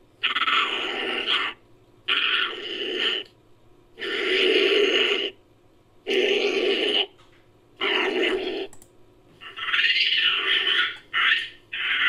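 Made-up sound effect for a Philippine long-tailed macaque: a run of about eight harsh, rasping calls, each about a second long, with short pauses between them; the last few come closer together.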